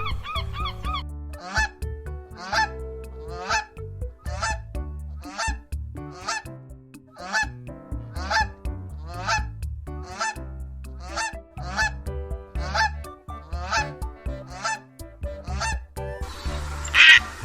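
A large bird, goose or crane, giving short honking calls about once a second over soft background music. A louder, harsher call comes in near the end.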